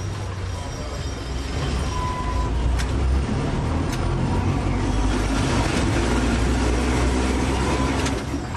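Electric tram running, a steady low rumble that grows louder about a second and a half in, with a few sharp clicks along the way.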